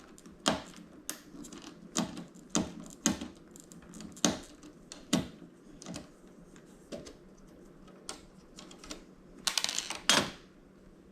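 Irregular sharp clicks and knocks of small parts being handled while a flat-screen TV is taken apart for scrap, sparser in the middle, with a short burst of clattering near the end.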